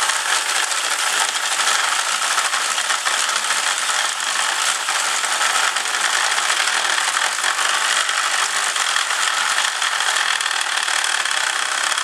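Power drill spinning a fitting-saver cutter whose metal teeth grind a glued-in PVC pipe out of an ABS fitting socket: a steady grinding that stops abruptly right at the end.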